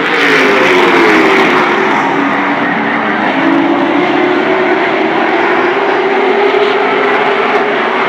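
Late model stock car V8 engines racing past on an asphalt short track, loud and continuous. The engine note drops over the first couple of seconds as a car goes by, then holds steady as the pack runs through the turn.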